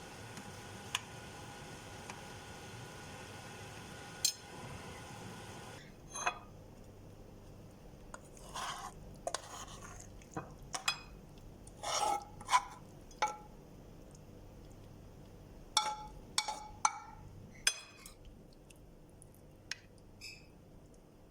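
Kitchen utensils clinking and scraping against pots and dishes: a string of separate clinks and knocks, some ringing briefly. Before them, a steady hum with a couple of ticks cuts off about six seconds in.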